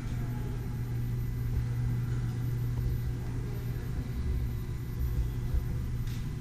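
A steady low hum and rumble, with a few dull low thumps about four to five and a half seconds in.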